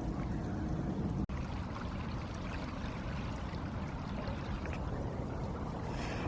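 Steady rushing of fast-flowing floodwater on the River Thames, with a momentary dropout about a second in.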